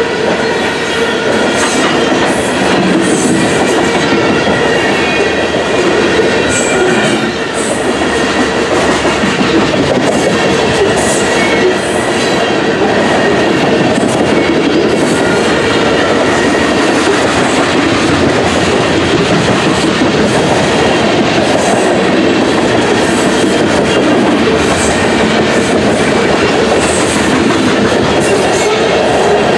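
Freight train of covered grain hopper cars rolling past close by: a steady, loud rumble of steel wheels on rail, with the clickety-clack of wheels passing over rail joints.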